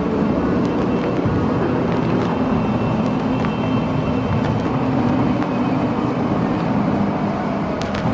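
Steady, dense rumbling noise with a low hum underneath, and a few faint clicks near the end.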